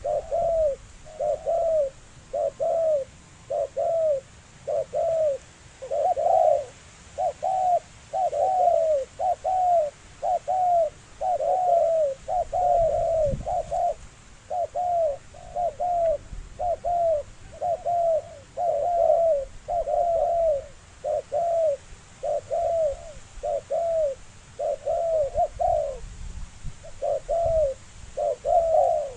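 Spotted dove cooing: a long, unbroken run of short arched coos, just under two a second.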